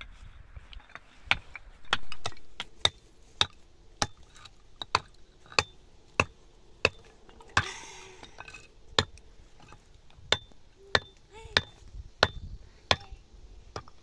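Repeated sharp chopping strikes at an even pace, about one every two-thirds of a second, with a short break midway.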